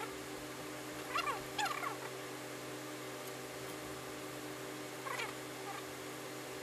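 A few short, high animal calls that bend in pitch: a quick cluster about a second in and one more about five seconds in, over a steady hum.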